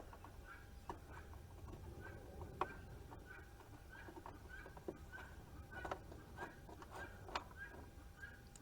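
Faint light clicks and taps of plastic parts being handled as a garden tractor's cover is worked loose. Under them runs a quick repeated high chirping, about two a second.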